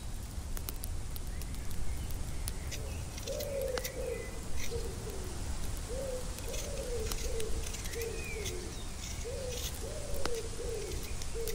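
Doves cooing: a run of short, low coos, each falling a little in pitch, repeating steadily from about three seconds in, with a few faint chirps of a smaller bird above them.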